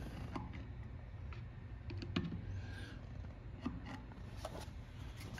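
Irregular clicks and taps of a hand tool working the front hub's axle nut on a Triumph TR3, the loudest about two seconds in, as the wheel-bearing adjustment is set to take out the wheel's wobble.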